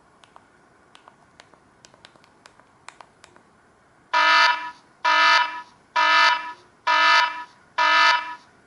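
Samsung SGH-D780 mobile phone playing one of its built-in ringtones or alert tones through its small speaker: five loud, evenly spaced buzzing beeps, about one a second, starting about four seconds in. Before them, a run of light clicks.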